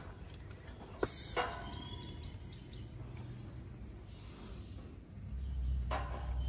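Quiet outdoor ambience with short bird chirps and a sharp click about a second in; a low rumble swells near the end.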